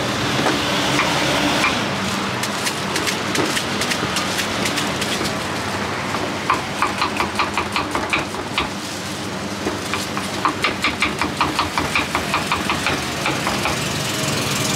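A crinkle-cut knife chops green fruit against a wooden cutting board in two runs of rapid, even strokes, about four to five a second. The first run comes about six and a half seconds in and the second about ten seconds in. A steady engine idling hum runs underneath.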